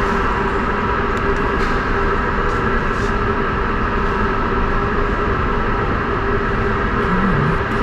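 Steady droning background noise of a large hall: an even rush with several held hum tones and a few faint ticks, unchanged throughout.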